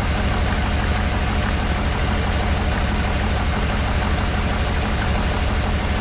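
1996 Chevrolet Suburban's 5.7 Vortec small-block V8 running steadily at idle with its cylinder-four spark plug removed and a compression gauge threaded into the hole, so it runs on seven cylinders.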